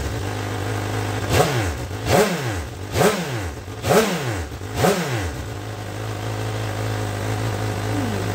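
Suzuki GSX-S1000's inline-four running through an SP Engineering Tri Oval big-bore carbon fibre end can with the baffle in. It idles steadily, is blipped five times about a second apart, each rev rising and dropping back to idle, then settles to a steady idle.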